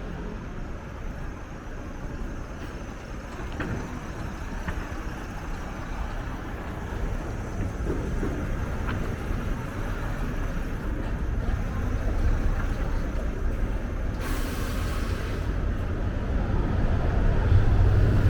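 City street traffic: motor vehicles running and passing, the low rumble growing louder toward the end, with a short hiss about fourteen seconds in.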